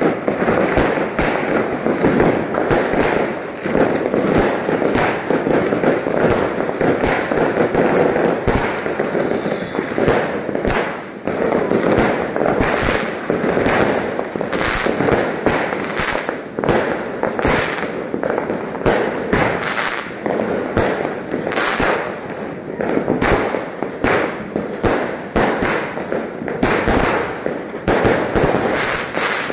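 Many aerial fireworks going off at once, a dense, unbroken barrage of bangs from rising shells and their bursts overhead.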